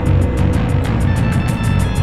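Background music with a steady fast beat, its high ticks coming about eight times a second.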